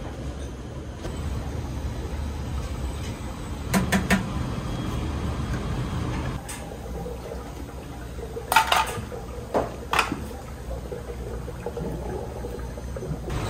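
Restaurant kitchen at work: a steady low hum with running-water noise underneath, and a few sharp clinks and clatters of dishes, two about four seconds in and more around eight to ten seconds.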